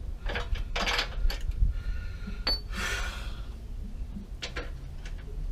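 Metal hand tool knocking and scraping at hardened iron-ore deposits on a car's suspension: a scatter of short clinks and knocks with two longer scrapes, one about a second in and one about three seconds in.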